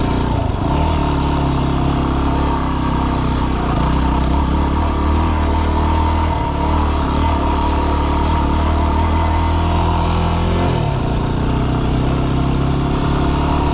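Yamaha WR250R dual-sport motorcycle's single-cylinder four-stroke engine running under way at a fairly steady pace, with a short dip in engine pitch and then a pickup near the end.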